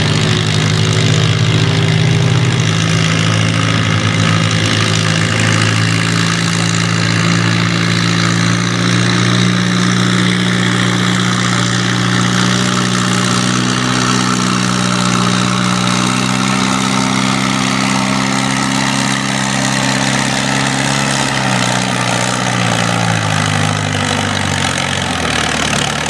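Case 400 farm tractor engine running hard at high, steady revs under load during a sled pull. Near the end its engine note drops away as it comes off the pull.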